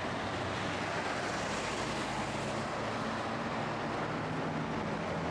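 Steady urban road traffic noise: an even wash of passing vehicle sound with no single event standing out.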